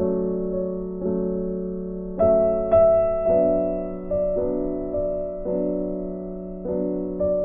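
Background keyboard music: slow, gentle chords struck about once a second, each one dying away before the next.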